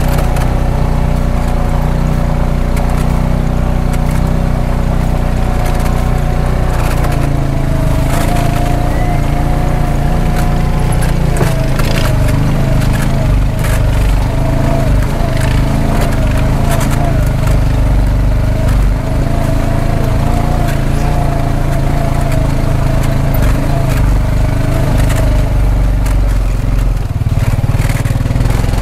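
Vehicle engine running steadily, with scattered knocks and rattles over it.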